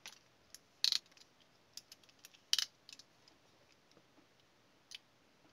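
Small screwdriver tip clicking and tapping against the plastic case of a pocket power bank as it is probed for a way in: a few sharp separate clicks, the two loudest about a second and two and a half seconds in.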